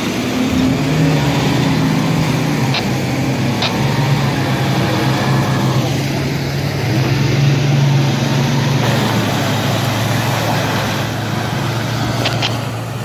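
Pickup truck engine running hard under load with the revs held fairly steady, as one 4x4 pickup tows another out of deep mud on a recovery strap.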